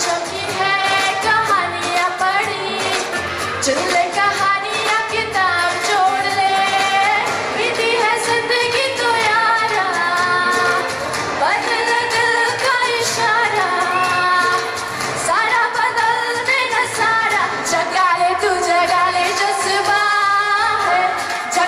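A woman singing solo into a handheld microphone, in long melodic phrases with held notes that bend in pitch.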